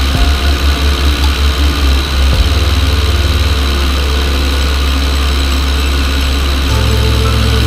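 de Havilland Tiger Moth biplane in flight, heard from a camera on the wing: a steady engine and propeller drone under heavy wind rush on the microphone. The wind buffets in quick pulses for the first couple of seconds, then settles into a steady roar.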